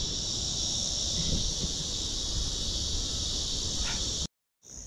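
Insect chorus: a steady, high drone of many calling insects over a low rumble. It cuts to silence for a moment near the end and comes back higher and narrower.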